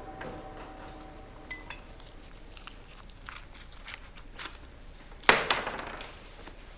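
Light clinks and clicks of crockery and cutlery at a breakfast table, with one louder sudden clatter about five seconds in.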